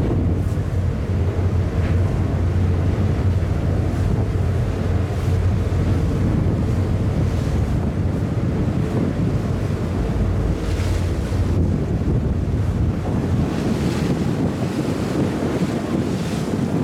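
Wind buffeting the microphone and water rushing along the hull of a cargo ship under way, over a steady low engine hum that fades somewhat near the end.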